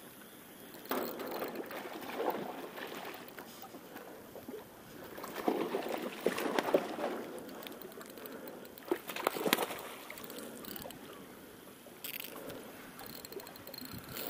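A hooked Japanese seabass splashing and thrashing at the water's surface in irregular bursts as it is played on a spinning rod.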